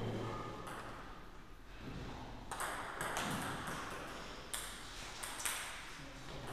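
A table tennis ball ticking in a few scattered bounces, about five over six seconds, each with a short echo.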